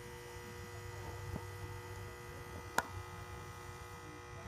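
A steady low hum with faint fixed tones, broken by one sharp click a little past halfway.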